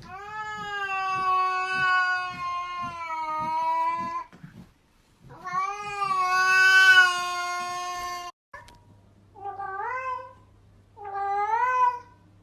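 A cat giving two long, drawn-out yowls, each held for three to four seconds. After a sudden cut, a cat gives two short meows that rise in pitch, over a low steady hum.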